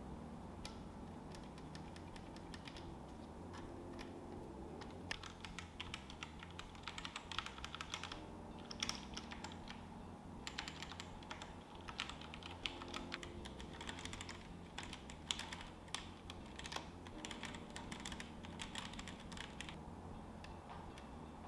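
Typing on a Tsunami MK-03 mechanical keyboard with Outemu mechanical switches: rapid key clicks, sparse at first, then a dense run of keystrokes from about five seconds in that thins out near the end. A steady low hum runs underneath.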